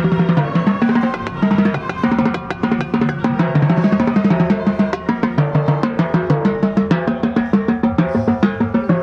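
Drum corps snare line playing fast, dense strokes and rolls, close up, over sustained brass chords.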